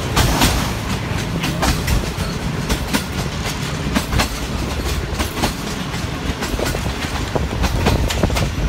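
Pakistan Railways Shalimar Express passenger coach running along the track: a steady low rumble with irregular clicks and knocks of the wheels over the rails, heard from the coach's open window.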